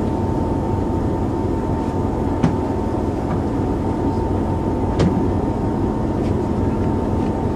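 Steady engine drone with a constant hum, broken by two short sharp clicks about two and a half and five seconds in.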